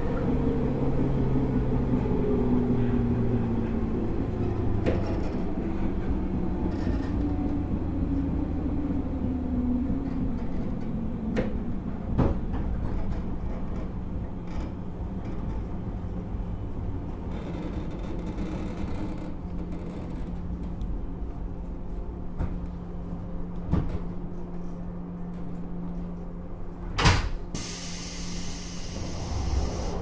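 Inside a 103 series electric train's motor car, the traction motors' whine falls in pitch as the train slows over the first ten seconds or so. It leaves a steady low hum with a few scattered clunks, and near the end comes a sharp clunk followed by a hiss of air.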